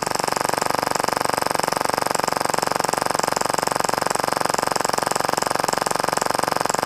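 Action Army AAP-01 gas blowback airsoft pistol firing full auto on a regulated air hose: an unbroken, very rapid stream of shots, the slide cycling with each one.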